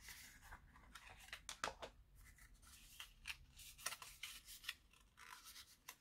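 Faint, scattered clicks and rubbing of a small plastic SSD case being handled and opened to take out an M.2 SSD.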